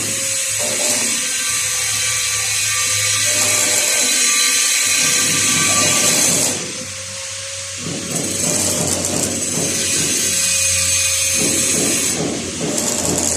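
A metalworking tool running with a loud, steady high hiss in long stretches, cutting out about six and a half seconds in, starting again a second later, and stopping once more near the end.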